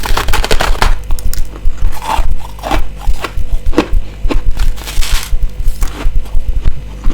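Close-miked biting and chewing of frozen ice, likely freezer frost: a dense burst of crunching at the start, then single crisp crunches about every half second, over a steady low thumping of the chewing.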